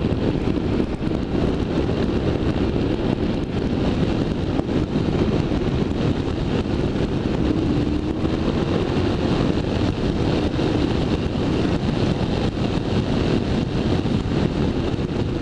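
BMW F650ST motorcycle's single-cylinder engine running steadily at cruising speed, mixed with heavy wind buffeting on the microphone.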